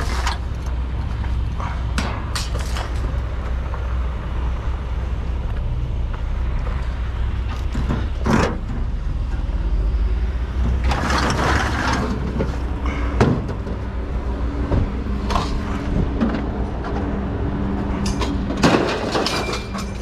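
Loose scrap metal knocking and clattering, several separate bangs and rattles as pieces are lifted out of a pickup bed and dropped, over a steady low engine rumble.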